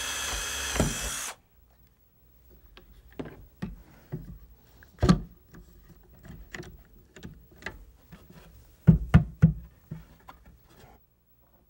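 Power drill whining as it bores a pilot hole through plywood, winding down and stopping about a second in. Then come wooden knocks and clicks as one-handed bar clamps are set and tightened on the plywood box sides, with a sharp knock about five seconds in and three quick knocks near the end.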